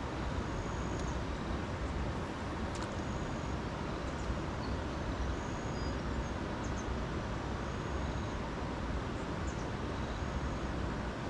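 Steady rushing outdoor noise, heaviest in the low end, with a short, thin, high-pitched call repeating every second or two.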